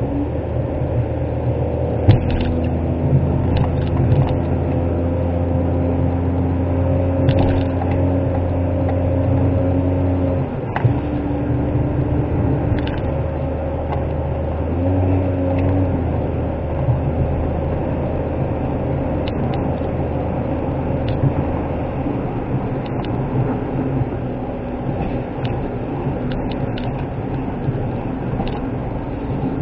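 Suzuki Wagon R kei car's small three-cylinder engine and road noise heard from inside the cabin while driving. The engine hum drops in pitch about ten seconds in, rises again briefly around fifteen seconds, then settles lower as the car runs on.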